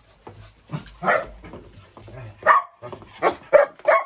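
Shetland Sheepdog barking: one bark about a second in, then a run of four quick barks in the last second and a half, coming closer together.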